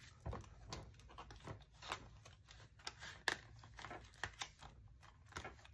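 Paper banknotes and a plastic binder cash envelope rustling and crinkling as bills are slid into the pocket, with scattered soft ticks and clicks.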